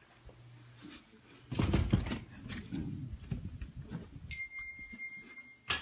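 Handling noise from a phone being carried by hand as the person walks: irregular low rumbling and rustling. After about four seconds a thin, steady high tone comes in, and just before the end there is a single sharp click.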